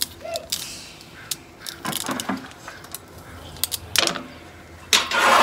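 Loose saw chain of a Craftsman electric chainsaw rattling and clinking as it is handled and fitted onto the guide bar, with scattered metallic clicks and a louder rattle near the end.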